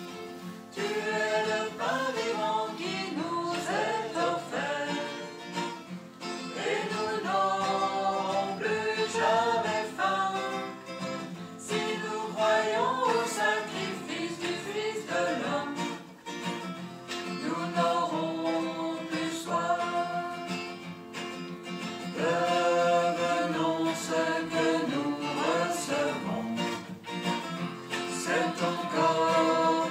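Hymn sung by several voices with acoustic guitar accompaniment, the melody moving in phrases of a few seconds.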